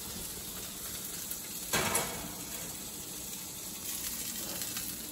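Chicken breast sizzling faintly and steadily in a hot stainless-steel pan, with a single metal clank a little under two seconds in as the pan is set onto the oven rack.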